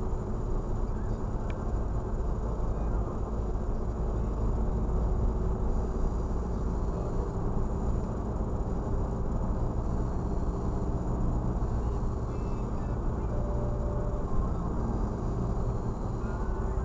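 Steady road and engine rumble of a car driving at town speeds, heard from inside the cabin, heaviest in the low end. A faint steady high whine runs under it.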